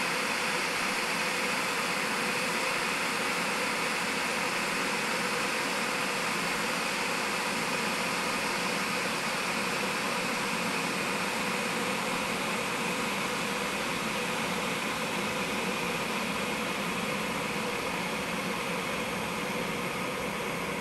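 A kettle heating water: a steady rushing hiss that eases off slightly near the end.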